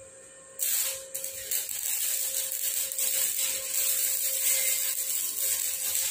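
Stick-welding arc from an iNGCO MMA inverter welder running an E6011 electrode at about 100 amps. The arc strikes about half a second in, drops out briefly near one second, re-strikes, and then burns with a steady crackling hiss.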